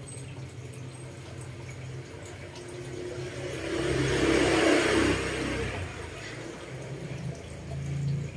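A rushing, whooshing noise that swells and fades over a few seconds near the middle, over a steady low hum.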